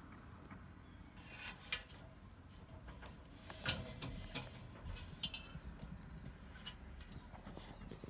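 A handful of short light clicks and taps, scattered irregularly over a low steady rumble, the loudest a little past the middle.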